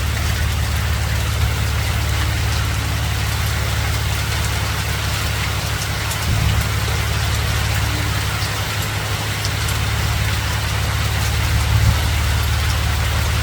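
Hail and rain falling steadily: a dense hiss with scattered sharp ticks of stones striking, over a steady low rumble.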